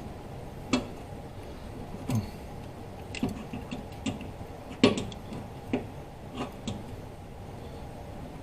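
Sharp metallic clicks and knocks of a wrench working on bolts as they are tightened, about nine at uneven intervals with the loudest nearly five seconds in.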